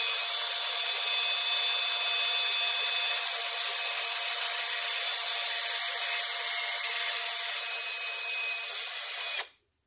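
High-speed rotary power tool grinding down the protruding tumblers of a VW Beetle door-handle lock cylinder. It runs steadily with a high whine over a gritty grinding noise, then stops suddenly near the end.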